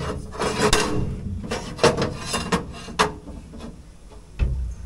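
Sharp knocks and clinks of metal parts being handled and set in place against a metal canopy frame, several in the first three seconds, then a duller thump near the end.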